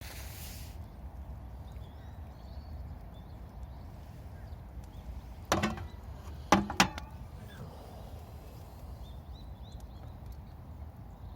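Three sharp knocks, each with a brief ringing tail: one about halfway through, then two in quick succession a second later, over a steady low background rumble.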